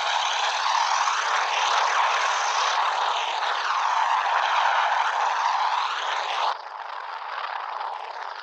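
Steady rushing drone of an aircraft in flight, which drops suddenly in level about six and a half seconds in.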